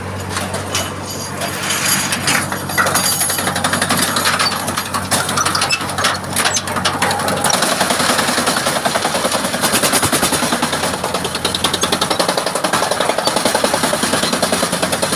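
Wood chipper running with a steady low hum, breaking into a loud, rapid rattling clatter about two seconds in that keeps going.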